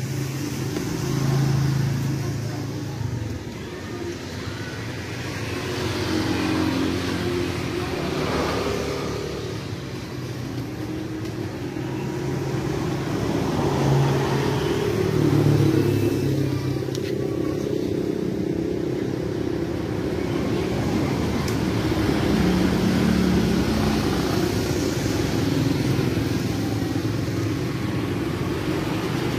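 Passing road traffic: a steady hum of vehicle engines that swells several times as cars and motorbikes go by.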